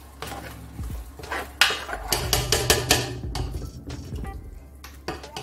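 Spoon scraping and knocking against the inside of a stainless steel pot as a thick blended-pepper and minced-meat sauce is stirred, in irregular strokes.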